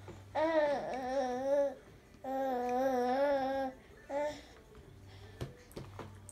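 Toddler vocalising in two long sing-song sounds with a wavering pitch, then a short one about four seconds in; a few light clicks near the end.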